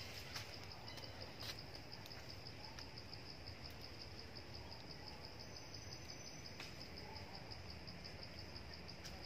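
Forest ambience dominated by a steady, high, finely pulsed insect trill, with a low background rumble and a few faint bird chirps.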